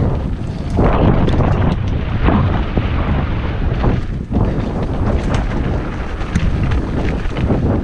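Mountain bike riding a rough dirt trail, heard from a camera on the bike or rider: steady low wind rumble on the microphone, with many quick rattles and knocks from the bike going over bumps.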